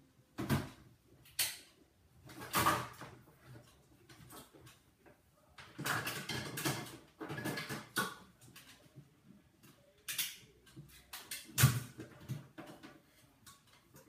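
Irregular knocks, clatters and rustling in a small room, with a longer scraping, rustling stretch about six seconds in and the sharpest knock near the end.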